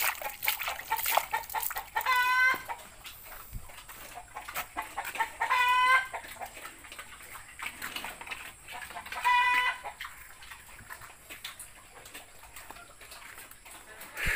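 Chickens calling: a short, loud, pitched call repeated three times, about three and a half seconds apart. Scattered clicks and knocks come in the first couple of seconds.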